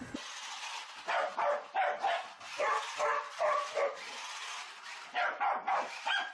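A dog barking over and over in quick runs of short barks, several a second, easing off briefly a little past the middle before starting again.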